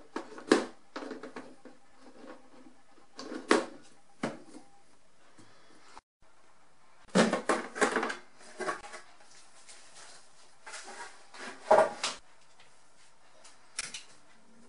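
Plastic clicks and knocks of a Uher 724 Stereo reel-to-reel tape recorder's casing parts being handled: cover strips pressed onto the deck, then a lid lifted. There are single sharp knocks with a cluster of clatter about seven seconds in and another loud knock near twelve seconds.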